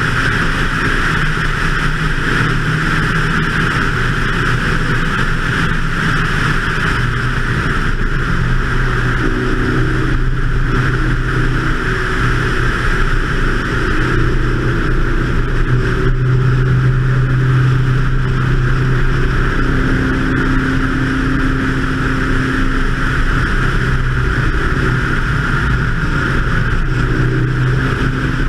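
BMW 2002's four-cylinder engine running hard on track, its note rising and falling in pitch through the lap. A constant rush of wind over the bonnet-mounted camera's microphone runs beneath it.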